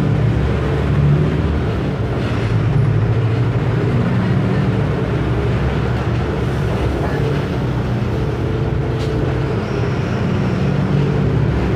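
Diesel engine of a Mercedes-Benz OF 1519 bus chassis running steadily as the bus drives, its low engine note shifting slightly in pitch. A sharp click about nine seconds in.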